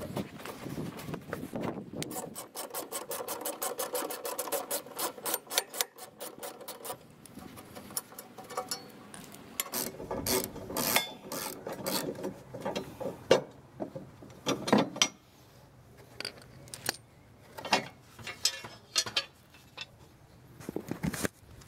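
Socket ratchet clicking in a fast, even run for about five seconds as the lawn mower's blade bolt is backed out, followed by scattered metal clanks and knocks as the bolt, socket and blade are handled and set down on concrete.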